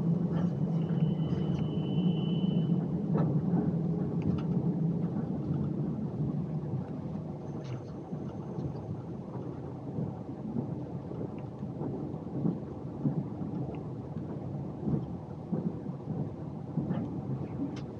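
Passenger train running, heard from inside the carriage: a steady low rumble with scattered small clicks and knocks from the wheels and car body, a little louder in the first few seconds.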